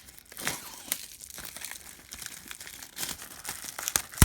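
Plastic wrapping crinkling and tearing as a sealed trading-card hobby box is unwrapped, with irregular rustles and a sharp snap near the end.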